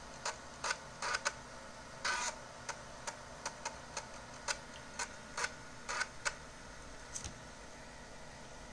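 USB external floppy disk drive clicking irregularly, about twenty short ticks, as its read head steps across a freshly inserted 720 KB floppy disk while the drive recognises it.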